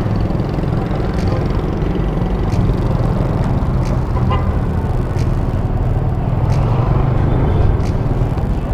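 Motorcycle engine running steadily while riding, mixed with wind and road noise, with a few faint sharp ticks.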